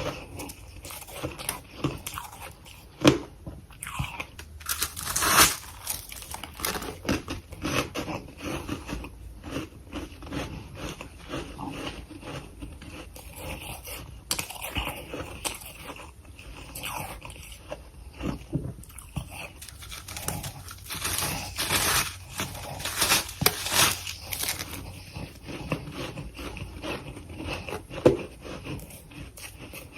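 A person biting and chewing freezer frost (soft, powdery ice), with an irregular run of crunches several times a second.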